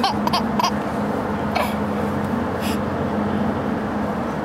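A baby's laugh trailing off in a few short bursts in the first second, with one more short vocal burst about a second and a half in. Underneath runs the steady road and engine drone of a moving car's cabin.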